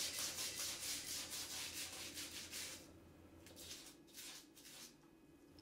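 Small nylon-bristled scrub brush scrubbing rapidly back and forth along the seam between the shower wall and floor, wet with all-purpose cleaner, working out what is left of the old moldy silicone caulk. The strokes are quick and even, then ease off about three seconds in to a few fainter strokes.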